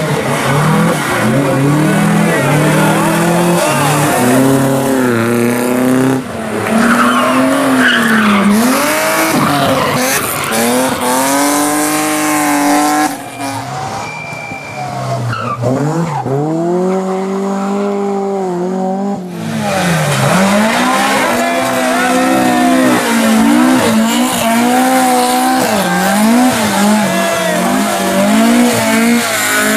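Rally car engine revving hard, its note rising and falling over and over with throttle and gear changes, with tyres squealing. Midway, for several seconds, the sound turns duller and quieter before the engine comes back up loud.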